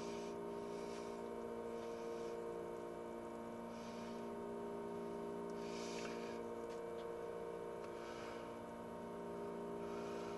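Steady electrical hum made of several even tones, with faint soft scrapes and rustles a few times as hands work a micrometer against a telescopic bore gauge.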